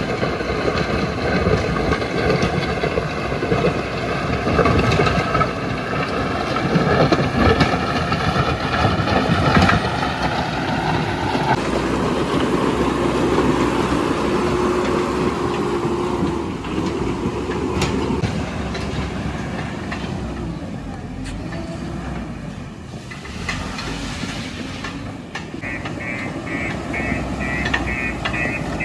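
JCB 3DX backhoe loader's diesel engine running and working, its pitch shifting as it takes load. A rapid, evenly pulsed electronic beeping starts about 25 seconds in.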